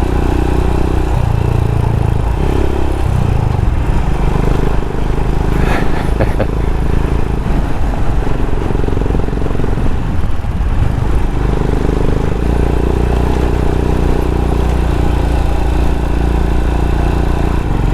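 Single-cylinder engine of a Royal Enfield Himalayan motorcycle running under way, its note shifting with the throttle and easing off briefly about ten seconds in.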